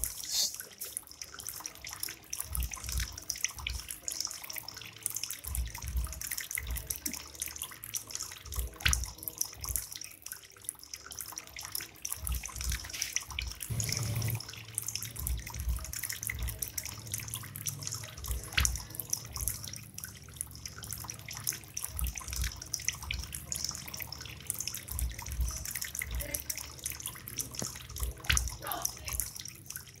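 Tabletop bamboo fountain running: water trickling from several bamboo spouts and splashing into a pebble-filled basin, a steady splashing hiss with frequent irregular dull thumps.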